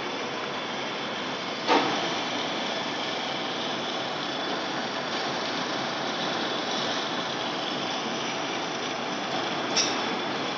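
Metal lathe taking a facing cut across a large spinning disc under a coolant jet: a steady machining noise, with a sharp knock about two seconds in and another near the end.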